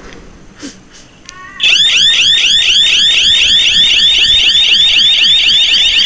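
Two 12-volt electronic siren buzzers on a sound-activated bird-scaring device switch on about a second and a half in. They sound a loud, high-pitched warbling alarm that sweeps about four times a second, set off by the device's sound sensor.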